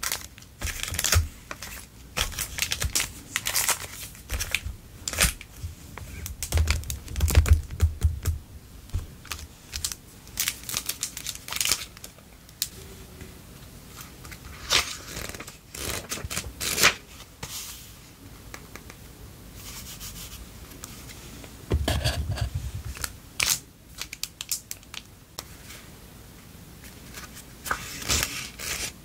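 Clear plastic stationery sleeves crinkling and rustling in irregular bursts as packs of memo pads and paper cards are handled and shuffled. A couple of stretches of dull low bumps come from the packs being moved against the desk.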